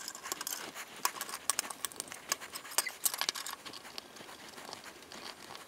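Small metal parts handled by hand: a U-bolt and linear bearing being fitted onto the metal Y-carriage plate of a Prusa i3 MK3 kit. Irregular light clicks and taps come mostly in the first three seconds or so, then thin out.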